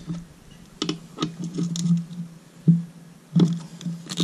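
Ratchet and 8 mm socket clicking and knocking irregularly against the oil filter cover bolts of a Kawasaki KFX 450R engine as the bolts are loosened.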